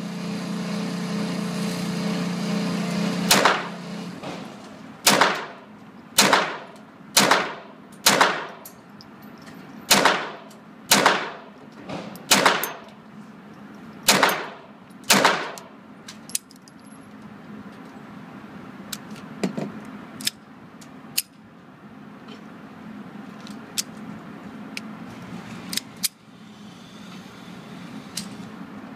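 .22 pistol fired about eleven times at an indoor range, the shots coming roughly one a second, each sharp crack trailed by echo off the concrete lane. A steady hum stops just before the first shot, and fainter single cracks follow after the string.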